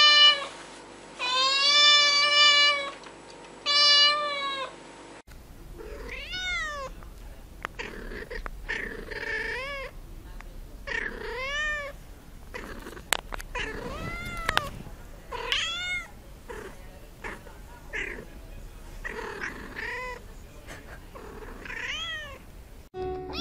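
Kittens meowing: first three long, loud meows, then, after a cut, a run of shorter, quieter mews that rise and fall in pitch, about one a second, with a couple of sharp clicks among them.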